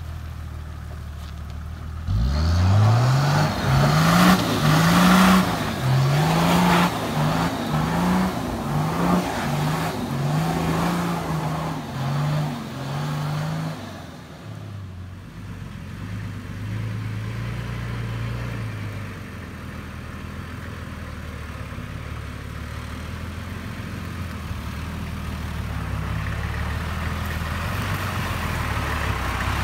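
Toyota LandCruiser 80 Series engine revving hard in repeated bursts, about one a second, as it claws up a rutted sandy climb with its wheels spinning. After that the engine settles to a steadier, lower note that rises slightly near the end.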